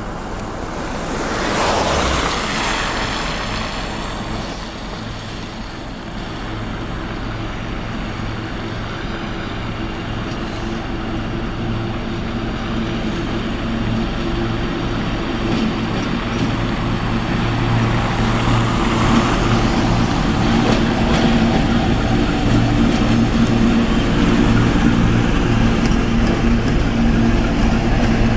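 ChME3 diesel shunting locomotive's engine running with a steady low hum that grows louder as it draws near hauling a freight train. Cars pass on the wet road alongside with a rushing tyre hiss, loudest about two seconds in and again near twenty seconds.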